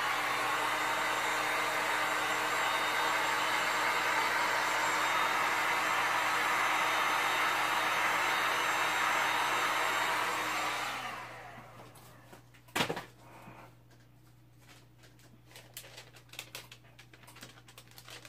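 Electric heat gun blowing steadily over wet epoxy resin, a rushing blower sound with a steady motor hum, dying away about eleven seconds in. About two seconds later comes one sharp knock, then scattered light clicks and taps.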